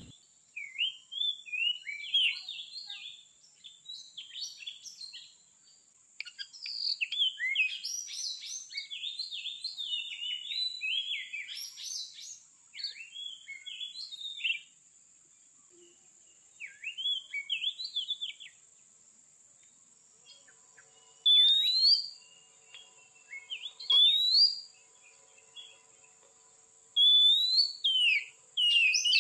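Oriental magpie-robin (kacer) singing bursts of quick, varied whistled phrases full of mimicked notes (isian), with a few separate loud rising whistles near the end. A faint steady high whine runs underneath.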